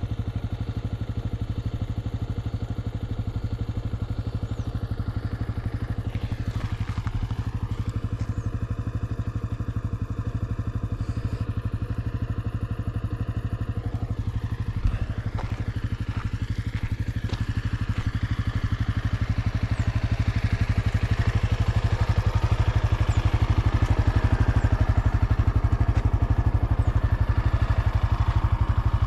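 Honda CB 250F Twister single-cylinder motorcycle engine running while being ridden. Its pitch dips and rises a couple of times in the first half, and it grows louder in the last third.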